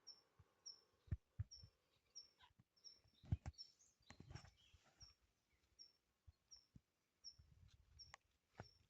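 Faint outdoor sounds: a short high chirp repeating evenly about every two-thirds of a second, with scattered knocks and rustles of handling, the loudest knock about three seconds in.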